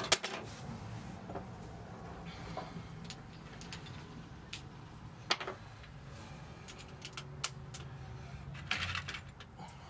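Scattered sharp clicks and knocks of tools and wood being handled while fitting a wooden cabinet divider. The loudest knock comes right at the start, another about halfway, and a short rattling cluster near the end as a cordless drill is brought into place.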